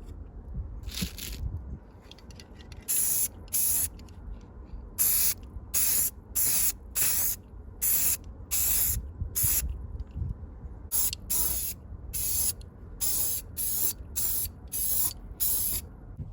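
Aerosol spray-paint can being sprayed in about twenty short hissing bursts, each under half a second, with irregular pauses between them: paint going onto the restored bench vise.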